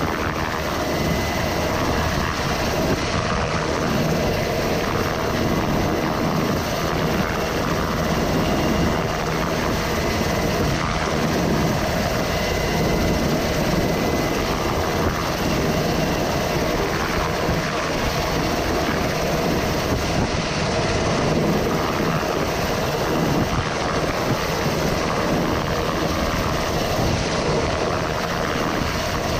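Rescue helicopter running steadily during a hoist operation: loud, unbroken rotor and engine noise with a faint steady whine.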